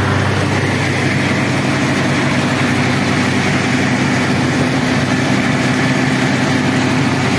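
Groundnut thresher running steadily, driven by a tractor's diesel engine, with a constant engine hum under the machine's threshing noise.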